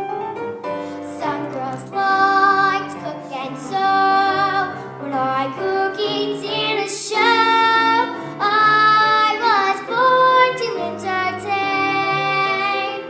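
A girl singing a show tune over instrumental accompaniment, holding notes with vibrato.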